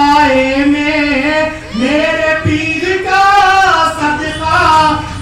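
A devotional Hindi-Urdu song: a voice sings long held notes that slide up and down, with a short break about two seconds in before a new phrase rises in.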